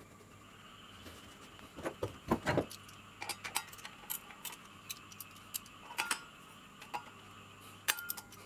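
Irregular light metal clicks and clinks as the washer and bolt are fitted onto a Makita circular saw's blade arbor and tightened with a ratchet wrench, with a cluster of louder knocks about two seconds in.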